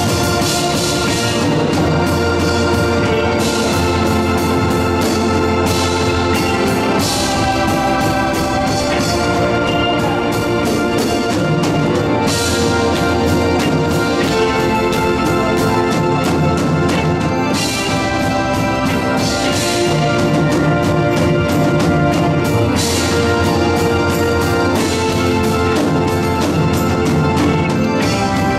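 Organ music in a gospel church service: sustained chords that change every few seconds, with a high hiss that swells and fades now and then.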